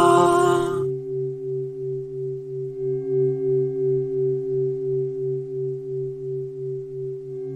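Meditation drone of a few low steady tones layered together, like a singing bowl, pulsing about twice a second. In the first second a bright tone slides up with a hiss, then drops away.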